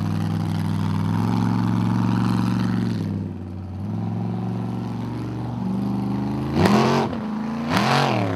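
Formula Offroad buggy's engine pulling hard up a steep dirt slope, with a dip in revs about three seconds in. Near the end come two sharp revs, each rising and falling, the loudest part.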